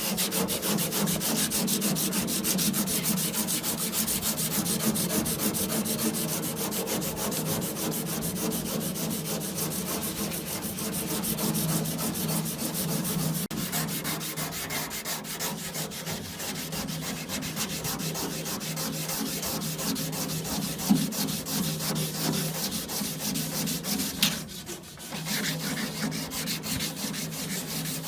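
Sanding on a rusty Toyota Camry steel wing (fender), a steady rasping rub that goes on without a break and pauses briefly near the end.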